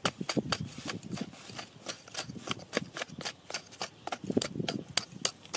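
A large knife blade chopping into hard, dry soil in quick repeated strikes, about four or five a second, each a short crisp knock.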